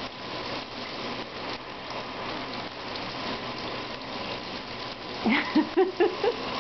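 Shower water spraying steadily onto a cat and the bathtub floor, a continuous hiss of falling water. About five seconds in come a few short vocal sounds in quick succession, rising and falling in pitch.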